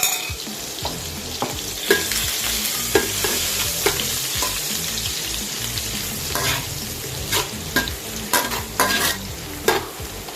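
Garlic and anchovies sizzling as they fry in hot oil, stirred with a spatula that knocks and scrapes against the pan again and again, more often in the second half.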